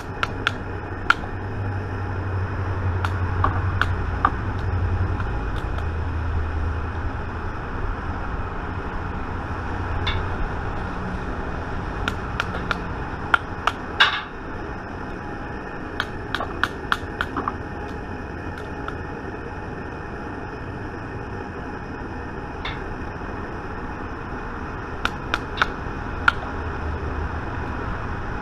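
Sharp clicks and taps in small clusters, with the loudest about halfway through, from a wooden mallet knocking the sprue plate of a bullet mold while casting lead bullets. A low rumble sits under the first few seconds.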